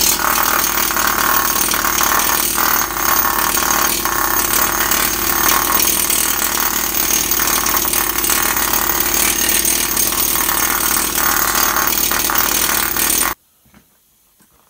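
Pneumatic planishing hammer running continuously on a dished steel knee cop, its rapid blows merging into one steady, loud sound. It stops abruptly near the end.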